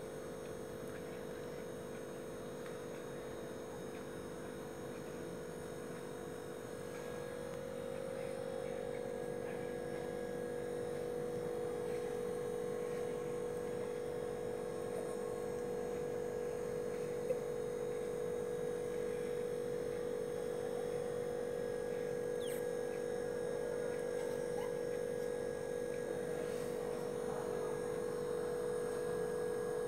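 A steady hum that grows a little louder about a quarter of the way in, with one brief click a little past halfway.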